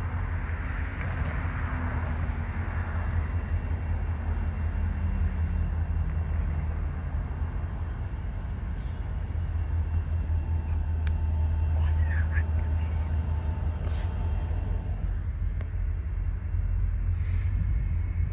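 Low, steady rumble of a distant diesel locomotive approaching, with a faint drone that falls in pitch over the first few seconds and a thin, steady high whine.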